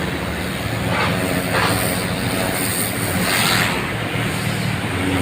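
Steady rushing hiss of a water hose jet flushing pavement, swelling now and then as the spray shifts, over the steady low hum of an engine running.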